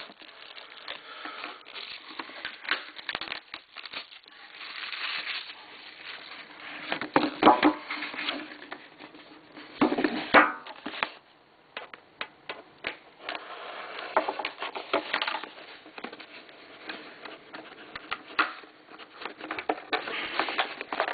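Plastic wrapping and card-box packaging being worked open by hand: irregular rustling, crinkling and clicks, with louder scrapes about a third of the way in and again about halfway.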